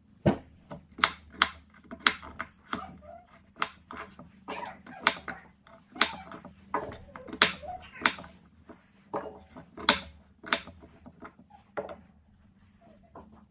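Russet potato being peeled by hand with a vegetable peeler and knife: short, sharp scraping strokes about two a second as skin is stripped off, stopping about a second and a half before the end.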